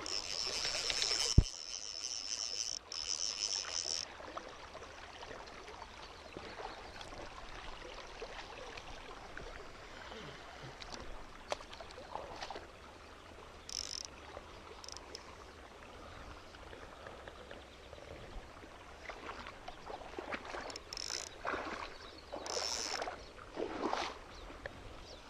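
Small mountain stream running, with a high buzz over it for the first few seconds and again in short bursts later on, and one sharp click about a second and a half in.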